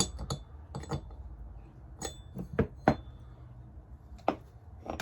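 Metal tools and parts being handled on a workbench: a scattered series of sharp metallic clicks and knocks, a few of them ringing briefly.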